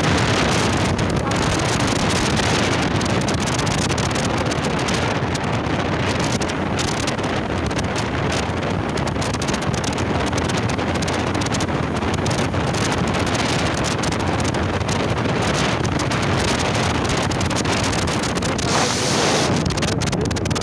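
Wind rushing over the microphone of a motorcycle riding at speed, with the bike's running noise under it.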